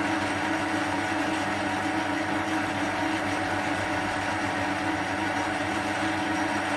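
Small metal lathe running steadily, a constant motor and gear hum with a few fixed tones over an even hiss.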